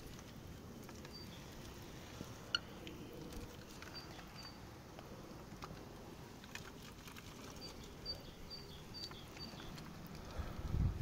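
Faint outdoor ambience with scattered light clicks and short, high chirps repeating at intervals.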